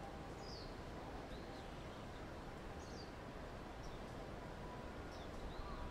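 Steady outdoor background noise with faint, short bird chirps every second or so.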